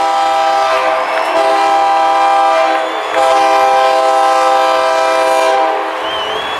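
A loud multi-tone horn sounding a steady chord in two long blasts of about three seconds each, the second stopping about six seconds in.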